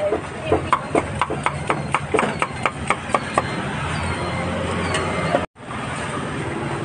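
Cleaver chopping grilled meat on a block in quick, even strokes, about four a second, stopping about halfway through. A steady low hum follows, and the sound drops out for an instant.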